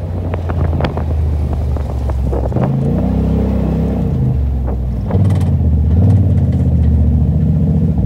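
2017 Polaris RZR XP4 Turbo's turbocharged twin-cylinder engine, through an aftermarket RJWC APX/AL exhaust, heard from the seat while driving slowly. The engine note rises and falls briefly about three seconds in and gets louder from about five seconds in.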